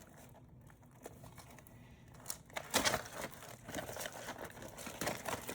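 Plastic-wrapped trading card packs crinkling as they are handled, in irregular bursts of rustling that begin a little before halfway in.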